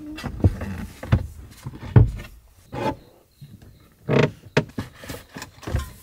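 Wooden panels of a camper van's bed platform being handled and set down: a string of knocks and thumps, the loudest about two seconds in, with short stretches of rubbing and shuffling between them.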